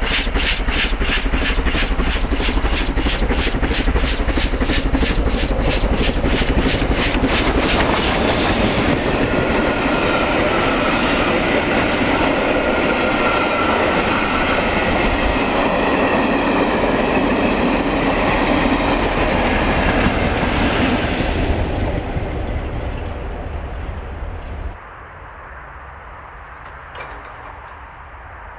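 Pacific steam locomotive passing at speed, its exhaust beating rapidly and evenly, then its coaches clattering over the rail joints. The train noise fades about 22 seconds in and drops suddenly to a quiet background near the end.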